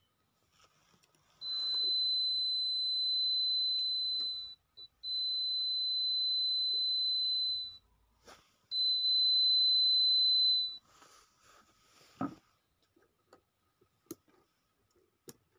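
Piezo buzzer of an animal-alerting sensor model giving three long, steady, high-pitched beeps with short gaps: the alarm signalling that the sensor has detected movement.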